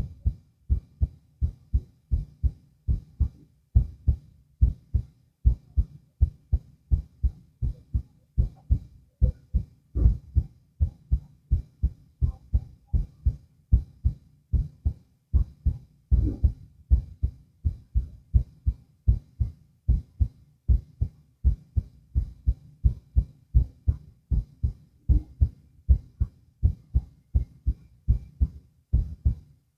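Human heart sounds heard through a stethoscope: a steady lub-dub rhythm of low paired beats.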